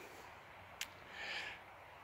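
A quiet pause with faint background hiss, broken by one sharp click just under a second in and a soft breathy hiss about half a second later.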